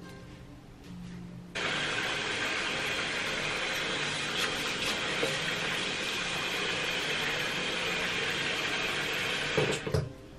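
Water running from a bathroom tap, a steady hiss that turns on suddenly about a second and a half in and shuts off near the end, as a section of dyed hair is rinsed to check the colour.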